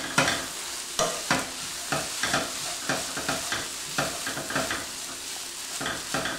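Wooden spatula stirring and scraping rice and cabbage in a frying pan on the heat, in quick repeated strokes about two or three a second, over a steady hiss of frying.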